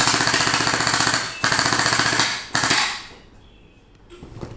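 Battery-powered STD SLR gel blaster rifle firing on full auto in three bursts, a rapid even rattle of shots. The first burst lasts about a second and a half, the second about a second, and the third is short. Near the end the blaster clatters faintly as it is set down on the table.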